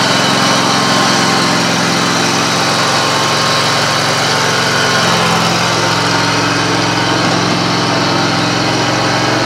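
Scag Tiger Cub zero-turn mower's engine running steadily. Its note changes about five seconds in as the mower drives off.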